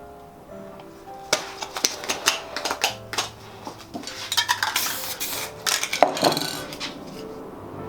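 Spray-painting work sounds: a rapid clatter of knocks and clicks from spray cans and tools being handled, mixed with short hissing bursts of spray, starting about a second in and easing off near the end.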